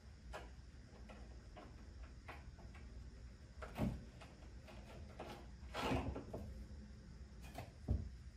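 Quiet handling of a fire extinguisher in a recessed cabinet tub: scattered light clicks and knocks, with louder knocks about four seconds in and near the end. A short rasp of the Velcro strap being fastened around the extinguisher comes about six seconds in.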